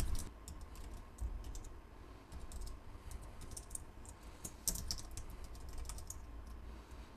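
Typing on a computer keyboard: a fast, irregular run of light key clicks with brief gaps between words.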